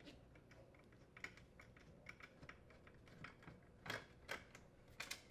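Faint, irregular light clicks and ticks of a screwdriver working the mounting screws out of a dishwasher door hinge, with a few louder clicks about four and five seconds in.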